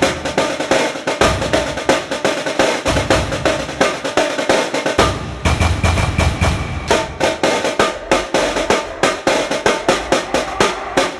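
Electronic dance music built on dense, fast drum hits with no vocals. The deep bass drops out early on and comes back in about five seconds in.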